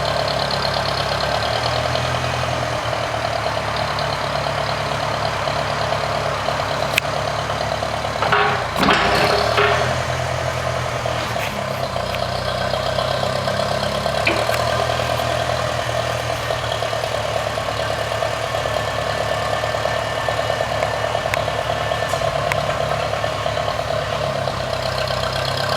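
An engine idling steadily, with a brief louder burst of noise about eight and a half seconds in.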